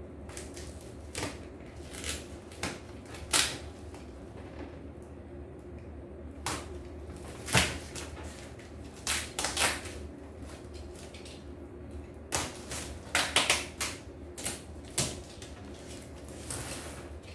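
Hands opening a taped cardboard shipping box: irregular sharp clicks, taps and short scrapes of cardboard and packing tape, thickest about thirteen to fifteen seconds in, over a steady low hum.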